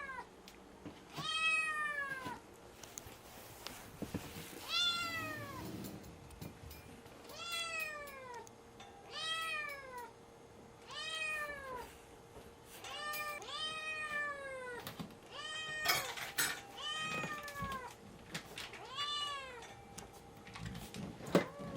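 A kitten meowing over and over to beg for food, about one meow every second or two. Each meow rises and then falls in pitch.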